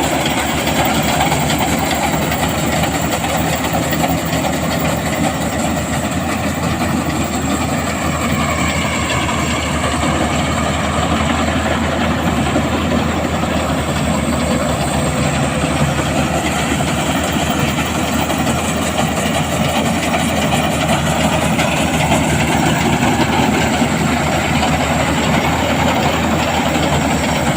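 Bimo Maxxi Extreme rice combine harvester running steadily: a constant engine drone with a fast, continuous mechanical clatter.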